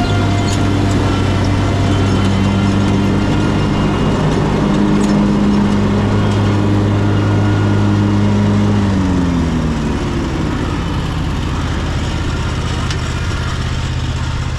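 Exmark X-Series mower's engine running steadily while mowing tall grass; about nine seconds in its pitch drops and it settles at a lower, steady speed.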